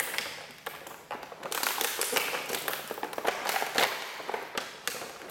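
Action-figure packaging being handled and pried open by hand: rapid crackling and clicking of stiff plastic and cardboard.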